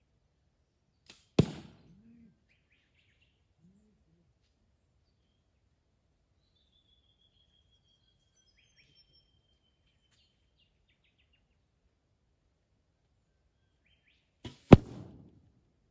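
Two arrows from a recurve bow hitting a stacked-cardboard target boss close by, about thirteen seconds apart: each a faint tick, then a sharp loud hit that rings briefly. A bird gives a long, slowly falling whistle between the hits.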